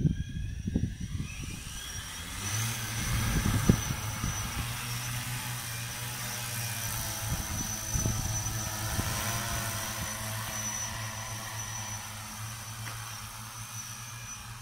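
JOYANCE JT6L-606 6-litre crop-spraying multirotor drone taking off: its motors and propellers spin up with a rising whine over the first two seconds or so, then settle into a steady hum that eases a little as it flies off. Wind rumbles on the microphone in the first few seconds.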